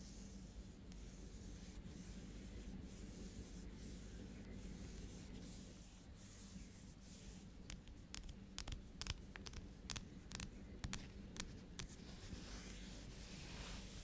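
Soft scratching and rubbing for the first several seconds, then a run of quick, light fingernail taps on a cardboard palette box, and rubbing again near the end. A faint steady low hiss runs underneath.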